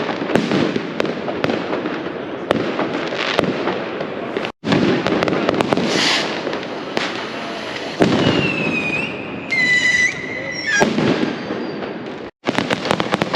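Firecrackers banging in a dense, rapid string of sharp cracks, broken by two brief silent gaps. From about eight seconds in, whistling fireworks shriek over the bangs for a few seconds, one whistle sliding slightly down in pitch, then a steadier one.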